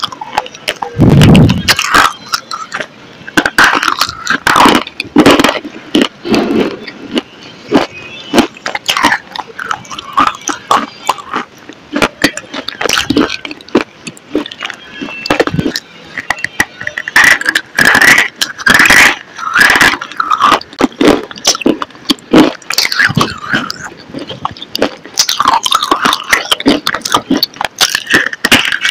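Close-up mouth sounds of biting and chewing a brittle, powdery white stick: a rapid, irregular run of sharp crunches and crackles.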